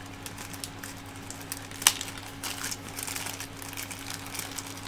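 Hands handling small printer parts and a sensor cable: light rustling and small clicks, with one sharp click a little under two seconds in.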